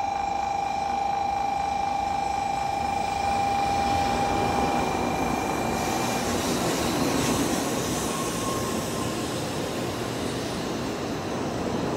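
N700-series Shinkansen train pulling in to stop at the platform: a rushing of wheels and air that grows louder as the cars slide past, with a faint brake squeal about eight seconds in. A steady high tone sounds over it until about five seconds in.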